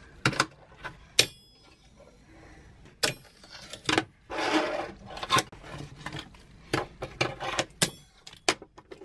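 Fingerboard tricks on a ramp: a string of sharp clacks as the small board pops and lands, with a stretch of its wheels rolling about four seconds in.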